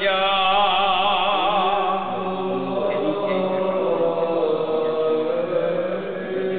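Voices chanting: a slow melodic line that wavers in pitch, held over a steady low drone note.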